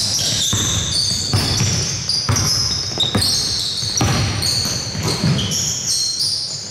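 Basketball game play on a gym court: a ball bouncing and sneakers squeaking in short, repeated high-pitched chirps.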